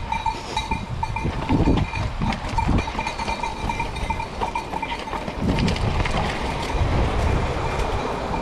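E-mountain-bike riding down a rough grassy trail: a continuous rumble of tyres, jolts and wind on the bike-mounted microphone, with a steady high whine throughout.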